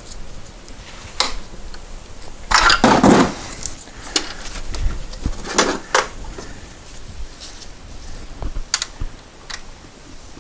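Irregular clicks, clinks and rustles of hand tools and metal hardware being handled in a car's engine bay. The loudest is a scraping rustle about three seconds in, with a few sharper clicks after it.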